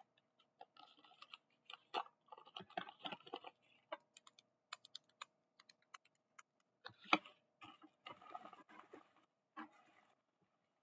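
Plastic blind-bag packaging crinkling and small plastic stationery items clicking and tapping as they are handled, in irregular light clicks, with one sharper knock about seven seconds in.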